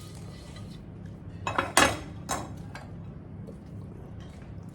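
Kitchen utensils and cookware clinking and knocking: a quick cluster of three or so sharp clinks about two seconds in, over a steady low hum.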